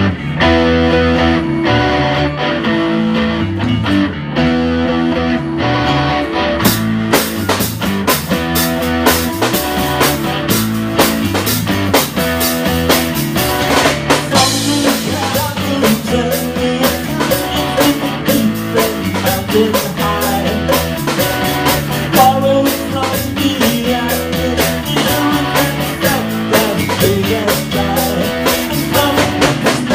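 Rock band playing an instrumental passage, electric guitars with bass and drum kit; the drums come in fuller about seven seconds in.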